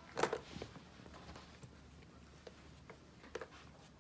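Six-week-old puppies scuffling over a plastic baby toy piano, with a cluster of soft rustles and knocks in the first second and a few faint plastic clicks from the keys later on.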